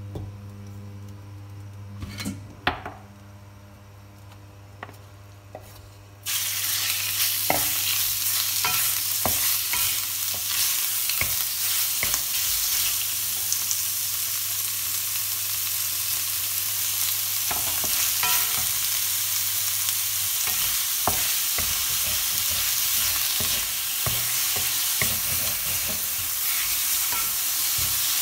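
Sliced marinated beef goes into hot oil in a stainless steel pan about six seconds in, setting off a loud, steady sizzle. A wooden utensil clicks and scrapes against the pan as the beef is stir-fried. Before the beef goes in there is only a low steady hum and a few knocks.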